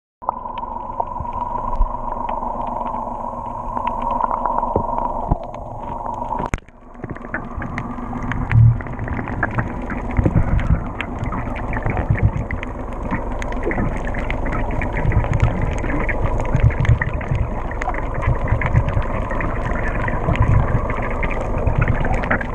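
Muffled water noise picked up by a camera underwater, with scattered low thumps and small clicks. The sound drops and changes abruptly about six and a half seconds in.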